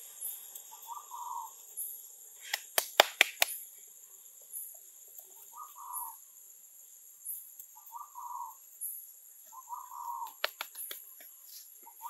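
Steady high insect drone with a short bird call repeating every couple of seconds. A quick cluster of sharp clicks or taps comes about three seconds in, and a few more near the end.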